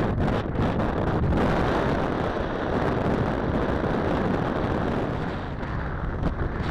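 Wind buffeting the microphone of a Mobius action camera on a moving bicycle: a loud, uneven low rumble with short gusty thumps.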